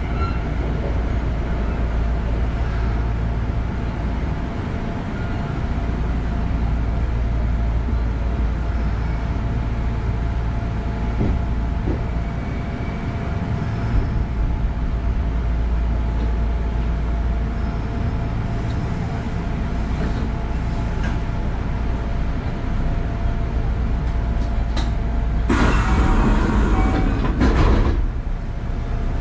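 Electric commuter train running on the Kintetsu Ikoma Line, heard from the driver's cab: a steady low rumble with faint steady motor tones and an occasional click from the wheels on the rail. Near the end a louder burst of noise lasts about two seconds.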